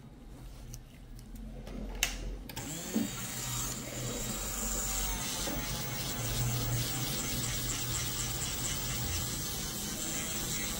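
Small electric nail drill of the kind podiatrists use, starting after a few faint clicks and a knock about two seconds in, then running steadily.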